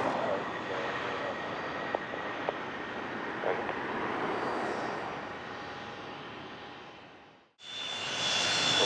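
Business jet engine noise, a broad rush that fades away over several seconds. It cuts off abruptly near the end, and a louder jet starts up with a steady high-pitched whine.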